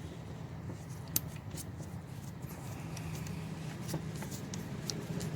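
Small clicks and light scraping of hands and a tool working on plastic parts and screws, with one sharper click about a second in, over a steady low hum.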